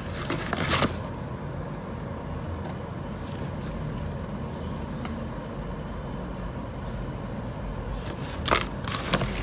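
Handling of a PVC tote bag: brief scraping and rustling of the stiff plastic in the first second and again near the end, over a steady low hum.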